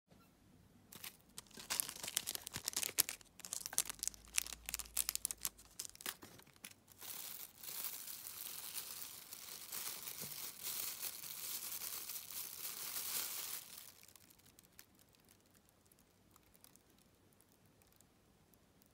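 Crinkling and rustling of plastic fly-tying material packets being handled. Sharp crackles come first, then a denser, steady rustle that stops about three-quarters of the way through, leaving only faint ticks.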